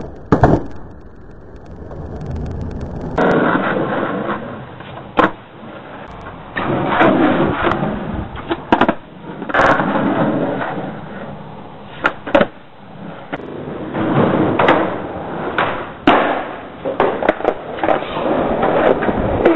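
Skateboard wheels rolling on concrete, broken several times by sharp clacks of the board popping off and landing back on the ground.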